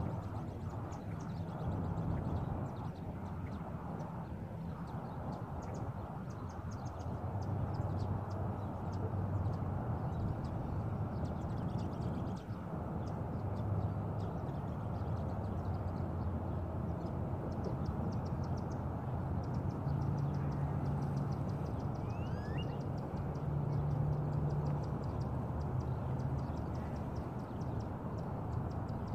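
Street-side outdoor ambience: a steady low rumble, with faint high chirping trills now and then.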